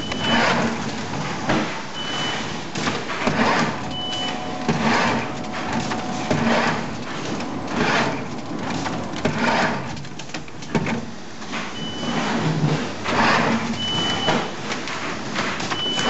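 Automatic seedling transplanter robot at work: its gantry gripper head shuttles back and forth, with short hissing, clacking bursts from the air-driven grippers about every second and a half. Short high beeps come in two runs of three, two seconds apart, near the start and again near the end.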